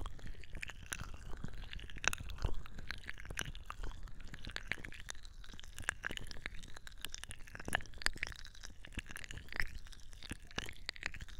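Fast, dense wet crackling and squishing close to an ASMR microphone, typical of aloe vera gel being worked over the mic.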